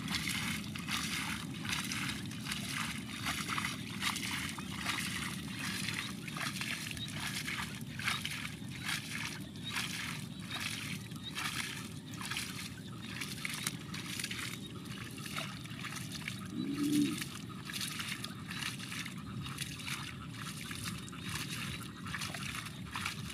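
Hands sloshing and scooping through shallow muddy water: an irregular run of small splashes and trickles as the mud is groped for fish. About two-thirds of the way through comes one short pitched sound.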